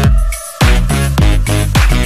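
Dance music with a steady, fast beat of deep, falling kick drums. It drops out briefly about half a second in.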